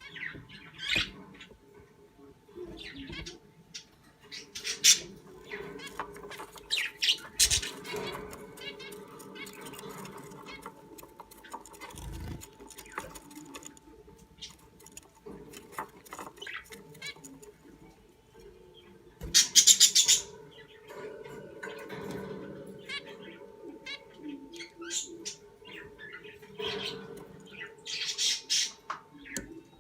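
Budgerigar squawking and chirping in short, irregular bursts, with louder harsh calls about 5, 7, 20 and 28 seconds in.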